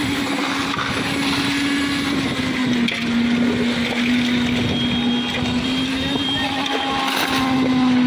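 Diesel-engine concrete mixer running steadily, its engine drone wavering slightly in pitch, with concrete churning in the mixing drum.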